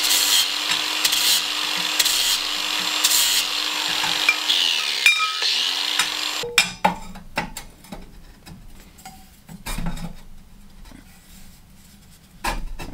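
Angle grinder with a 60-grit flap disc grinding the end of a square steel tube down to length, the motor's steady whine under a harsh hiss. It spins down about five seconds in, runs briefly again, and stops about a second later. A few light clanks and knocks of the steel tube being fitted into the frame follow.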